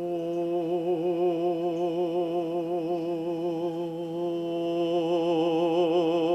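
Qigong healing sound for the heart: a single long chanted "ho", one held note with a slight waver, swelling a little louder in its second half.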